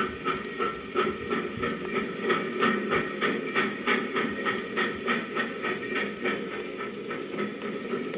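Steam train running at speed on a 1952 78 rpm sound-effects record: an even rhythm of chuffs and clatter, about three beats a second, over a steady rumble.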